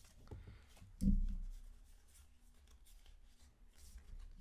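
Pokémon trading cards and their foil booster pack being handled: light rustling, sliding and small clicks of cards, with one dull thump about a second in.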